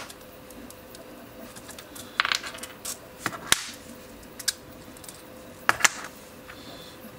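3D-printed PETG gear parts of a planetary-gear fidget spinner clicking and clattering as it is pulled apart and the pieces are set down on a hard workbench. A few scattered sharp clicks, grouped about two seconds in, near three and a half seconds and near six seconds.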